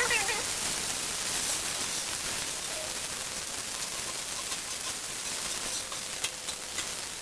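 Salmon sizzling on a Blackstone flat-top griddle: a steady high crackling hiss, with a few sharp pops near the end.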